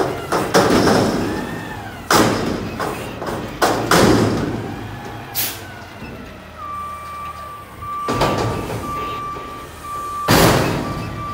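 CNG Peterbilt 520 front-loader garbage truck with a McNeilus body dumping a steel commercial dumpster over the cab. The container bangs several times against the arm stops as it is shaken empty, over engine and hydraulic noise. About halfway through a steady on-off beeping alarm starts, and near the end a loud bang comes as the dumpster is set back down.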